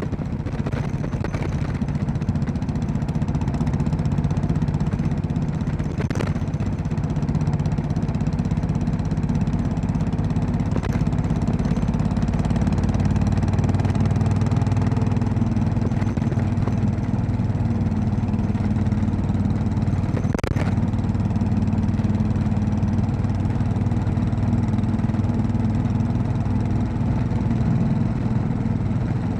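Royal Enfield Classic 500's single-cylinder engine running steadily as the motorcycle is ridden, with two sharp knocks, one about six seconds in and one about twenty seconds in.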